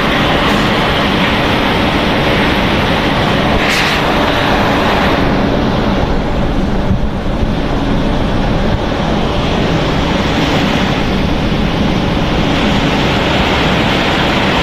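Snack pellet production machinery running with a loud, steady rushing noise and a faint hum underneath. A brief sharp click comes about four seconds in.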